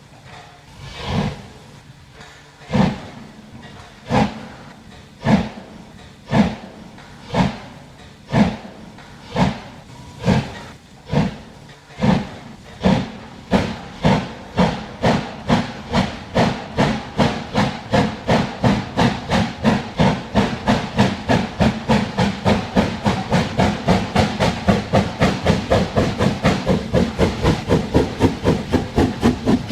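Steam locomotive pulling away: exhaust chuffs about a second apart at first, quickening steadily to several a second as it gathers speed.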